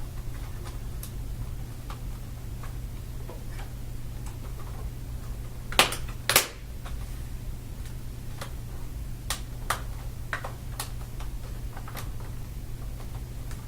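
Plastic screen bezel of a laptop being worked and pressed back into place: scattered sharp clicks and snaps, two louder ones close together about six seconds in, over a steady low hum.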